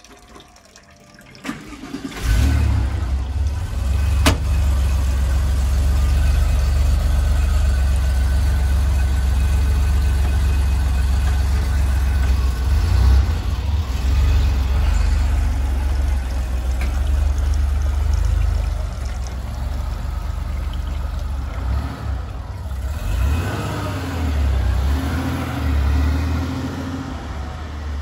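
Porsche 964 Targa's air-cooled 3.6-litre flat-six cranks and catches about two seconds in, then idles steadily. Near the end the car pulls away and the engine sound fades as it moves off.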